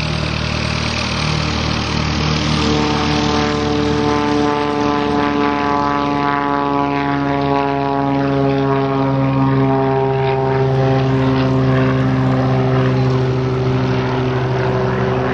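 Single-engine piston propeller airplane at full takeoff power, lifting off and climbing away. Its engine-and-propeller drone holds a steady chord that slowly falls in pitch from a few seconds in.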